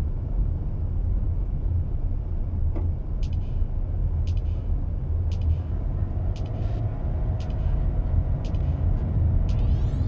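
Steady low rumble of a car's engine and tyres heard inside the cabin while driving, with faint, regular high ticks about once a second in the second half.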